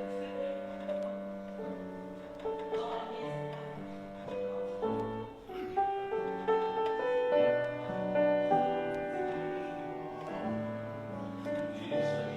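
Gentle piano music: chords and a melody in held notes over a slow bass line.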